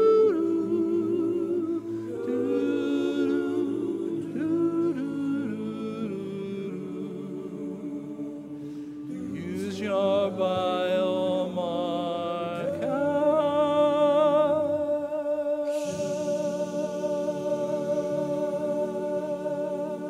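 Male a cappella vocal group singing in close harmony, ending on a long held chord over the last several seconds. Applause starts under the final chord.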